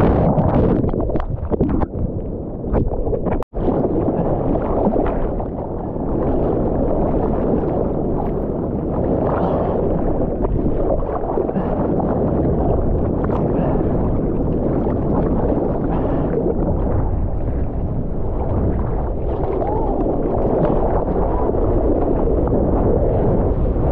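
Ocean water rushing and sloshing, heard muffled through a GoPro's waterproof housing. The sound cuts out for an instant about three and a half seconds in.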